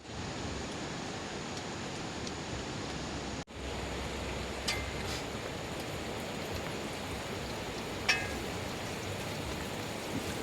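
Heavy rain falling steadily, a dense even hiss, cut off for a moment about three and a half seconds in. Two short clicks are heard, about a second after the break and again about eight seconds in.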